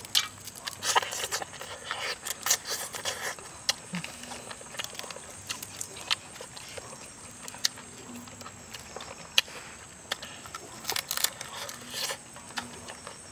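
Close-up eating of barbecued duck by hand: irregular crunches, wet smacks and tearing of crisp roasted skin and meat, with chewing. A steady high-pitched whine runs underneath.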